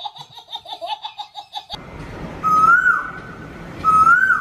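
A quick, even run of laughter, cut off abruptly under two seconds in. Then two short whistles over a steady hiss, each held and then rising at its end, about a second and a half apart.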